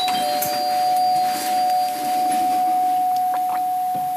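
Doorbell ringing: two tones, a higher one held steady for several seconds and a lower one that comes in just after it and fades out about two seconds in.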